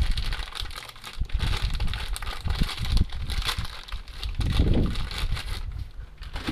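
Clear plastic bag crinkling and rustling in irregular crackles as it is handled and pulled open to unwrap a new part.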